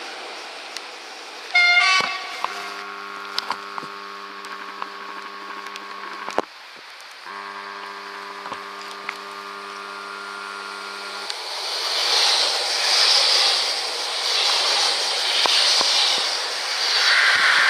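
Train horn: a short, loud toot, then two long blasts of a steady multi-note chord, each about four seconds. After that a train passes close, its running noise rising and swelling in regular waves.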